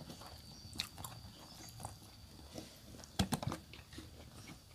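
Eating sounds: quiet chewing and small clicks of a spoon and fingers against plates, with a brief cluster of sharper clicks a little after three seconds in.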